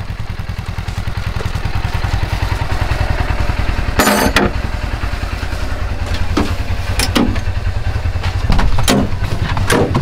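Side-by-side UTV engine idling steadily, with several clunks and knocks about four, six and a half, seven and nine seconds in. The engine picks up near the end as the machine moves off.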